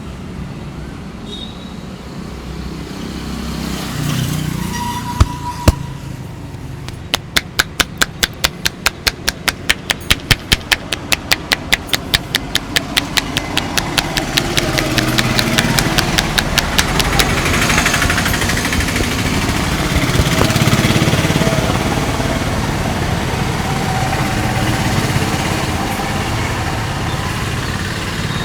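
A quick, even run of sharp clicks from the barber's hands or tools, about four a second for some ten seconds, preceded by two single sharp clicks, over steady street traffic noise that swells briefly as a vehicle passes.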